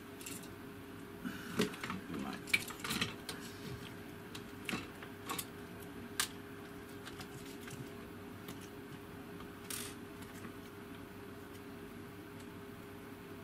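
Clicks and light knocks of plastic appliance parts and their wiring being handled on a workbench. They come thickest in the first six seconds and thin out after, over a faint steady hum.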